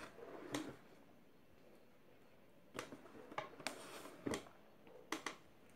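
Faint handling noises in a small quiet room: a scattering of soft taps and rustles, about half a dozen spread through.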